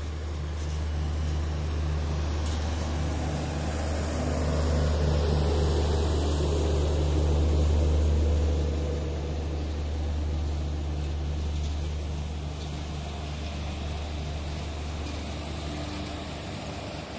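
Train passing on an uphill grade, banked at the rear by a set of three Indian Railways WAG-7 electric locomotives: a steady deep hum with the rumble of wheels on rail. It swells to its loudest about halfway through as the bankers near, then eases off.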